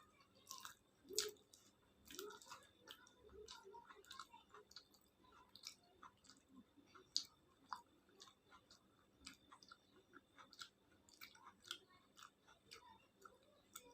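A person chewing and eating khichuri with fried pointed gourd, potato and egg: faint, irregular wet mouth clicks and smacks, several a second.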